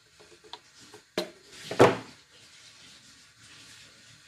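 Handling of pliers and a plastic kettle body on a wooden desk: a small click about a second in, then a louder sharp knock shortly after, with light rubbing between.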